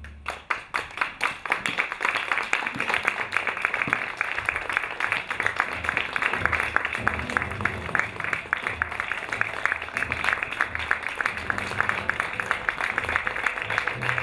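Audience applauding: dense, steady clapping that starts suddenly and keeps going.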